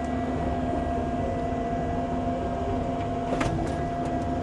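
Tracked machine's engine running steadily under load on a muddy climb, with a constant whine over the engine note. A short click about three and a half seconds in.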